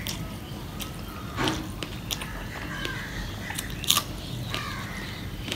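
Eating by hand: fingers mixing rice with okra fry and dal on a steel plate, then a mouthful taken and chewed. A few short wet clicks and smacks come through, the sharpest about four seconds in.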